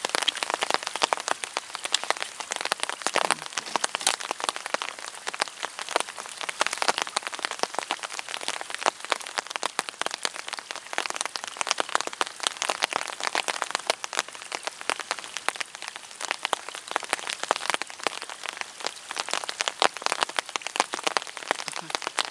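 Steady rain pattering on a fabric umbrella just overhead: a dense, irregular patter of individual drops.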